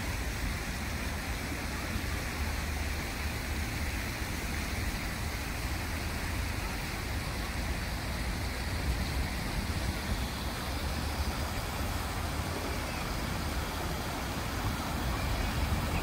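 Steady city road traffic noise, a continuous low rumble of passing cars and buses.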